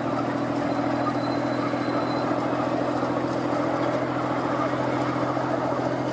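Ride-on miniature locomotive's engine running steadily as the train rolls along its track: a steady low hum over a rumbling noise.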